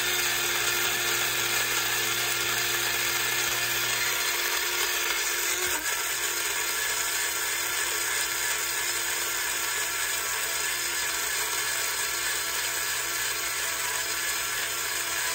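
Small electric blade grinder running steadily, its motor and blades grinding whole wheat berries into flour; the tone shifts slightly about six seconds in.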